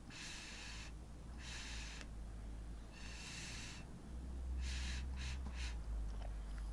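Puffs of breath blown by mouth onto wet acrylic paint to spread a bloom: a series of breathy blows, the last few shorter and quicker, over a low rumble that gets louder about four seconds in.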